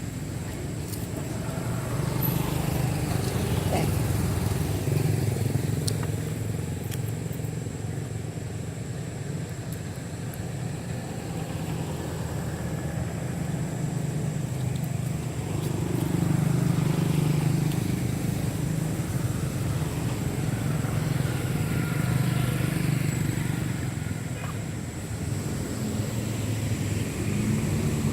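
A motor running continuously with a low, steady hum, swelling louder and easing off a couple of times, like engines of passing motor vehicles.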